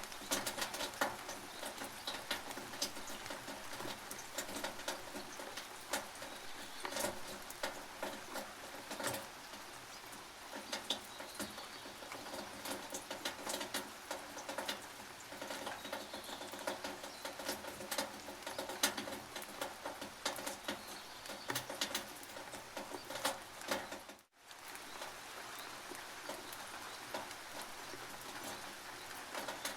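Rain dripping and pattering on a tin roof: a steady hiss of rain with many irregular sharp drop taps on the metal. The sound cuts out for a split second about three quarters of the way through.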